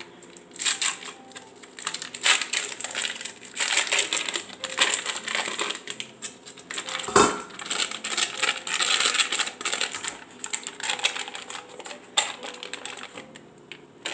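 Foil wrapper of a block of cream cheese crinkling in irregular bursts as it is torn open and peeled back. There is a single sharp knock about halfway through.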